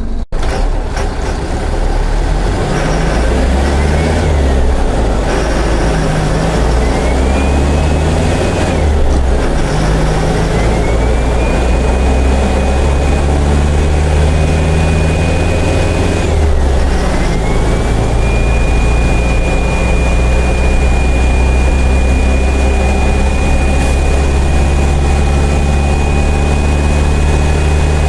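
Mercedes-Benz OF-1418 bus's diesel engine pulling through the gears of its six-speed box. The revs climb and fall back at three gear changes, with a high whine rising alongside them. After the last change it holds steady revs.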